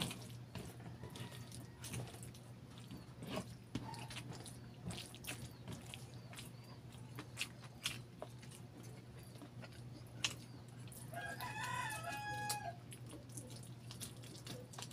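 Close-up eating sounds of chicken barbecue and rice eaten by hand: wet chewing, lip smacks and sticky finger clicks, over a steady low hum. About eleven seconds in, a rooster crows once, for about a second and a half.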